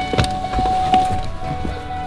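Chevrolet pickup's key-in-ignition warning chime sounding steadily while the driver's door stands open with the key left in, along with a couple of clicks and knocks as the driver gets out.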